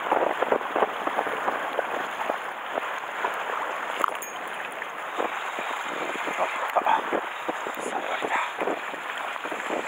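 Choppy sea water sloshing and splashing against the shore rocks in a continuous wash of irregular small splashes, with wind buffeting the microphone.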